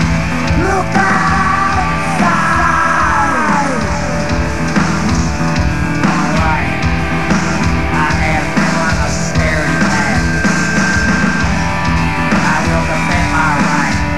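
Live industrial rock band playing loud, with a pounding drum kit and distorted electric guitar, including some sliding notes early on.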